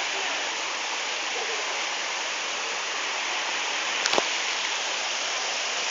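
Waterfall rushing steadily, a dense even roar of falling water. Two sharp clicks sound about four seconds in.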